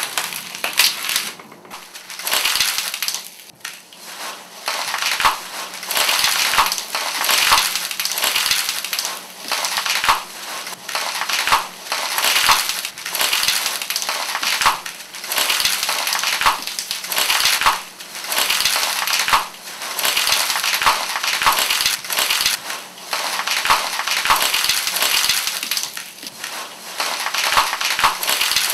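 Polystyrene packing peanuts crunching as they are stepped on, in repeated bursts about once a second.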